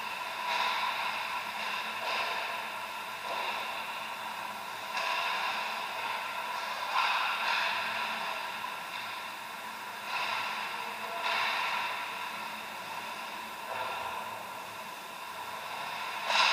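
Ice hockey skates scraping and swishing on the rink ice in irregular strokes, over a steady arena hum.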